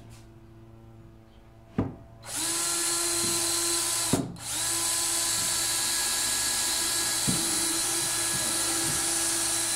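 Power drill running at a steady pitch in two long runs, with a click just before it starts and a short pause about four seconds in: drilling holes in a wooden sled for screws.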